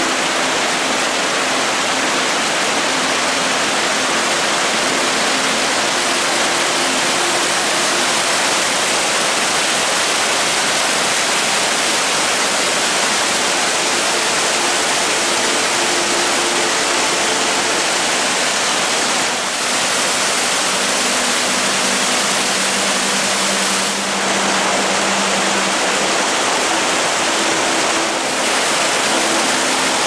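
White water of the Mallnitzbach, a mountain stream, rushing over boulders and down waterfalls. The rush is loud and steady, dipping briefly three times in the second half.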